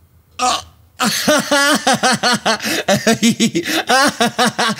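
A person laughing in a long run of short, rhythmic 'ha' syllables, starting about a second in.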